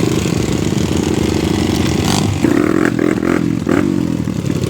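Trail motorcycle engine running under load and revving, with its pitch shifting about halfway through. There is a short sharp crack about two seconds in.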